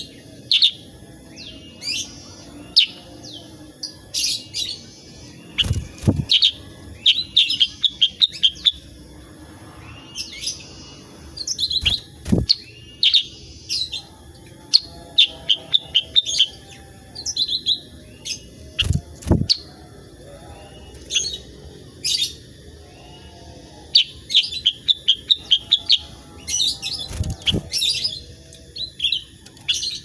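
Caged black-headed bulbul (kutilang sutra) calling in quick runs of short, sharp chirps, with a few low thumps in between.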